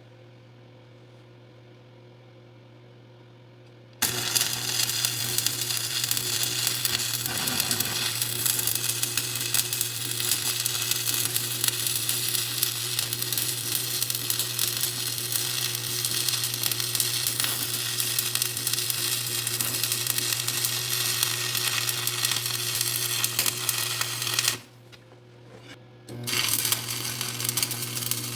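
Stick (SMAW) welding with a 7018 electrode, the cover pass over a 6010 root weld on a cracked frame: a steady arc crackle and sizzle that strikes up suddenly about four seconds in, after a low hum. The arc stops for about a second and a half near the end, then strikes again.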